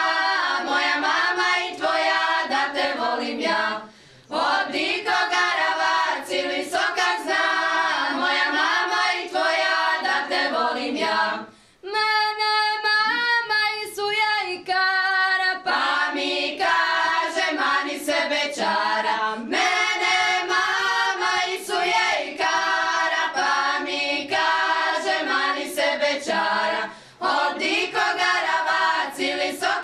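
Women's folk singing group, with some girls among them, singing a traditional song together unaccompanied, with short pauses for breath between phrases.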